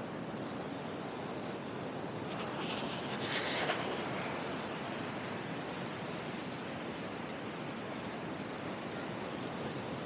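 Ocean surf washing onto a sandy beach, a steady hiss, with a louder, brighter rush of hiss about three to four seconds in.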